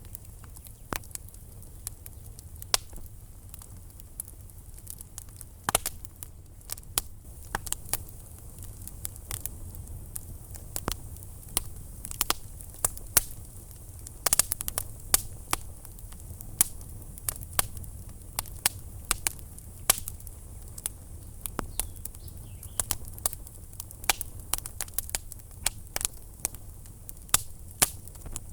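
Wood fire burning in a fireplace, crackling with irregular sharp pops and snaps, a quick flurry of them about halfway through, over a steady low rumble.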